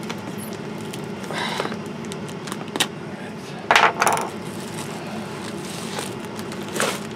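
Plastic shipping mailer being handled and torn open: several short crackling rips, the loudest pair about four seconds in, and another near the end.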